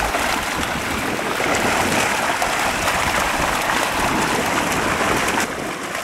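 Dense, continuous splashing and churning of water as many mullet crowded in a net pen thrash and leap at the surface. The hiss eases a little near the end.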